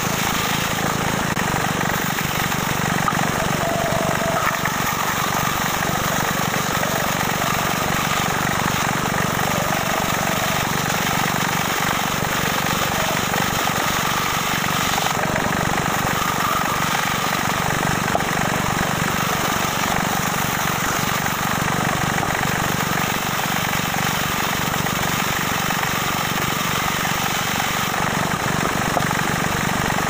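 Bandsaw running steadily while its blade cuts through a block of wood fed by hand along a curved line.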